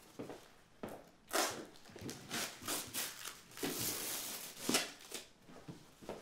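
A cardboard box being opened by hand: a series of irregular scrapes and rustles as the lid and flaps are worked loose, with the louder scrapes about a second in and again around the middle.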